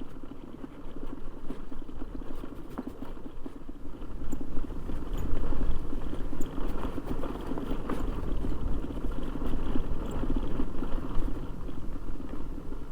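Motorcycle engine running as the bike is ridden along a dusty dirt track, with wind rumbling on the microphone; it gets louder about four seconds in.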